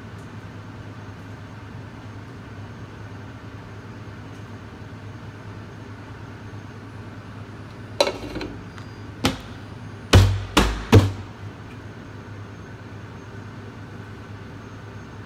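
Steady hum of a commercial kitchen's exhaust hood ventilation. About halfway through come five loud, sharp knocks and bumps in quick succession.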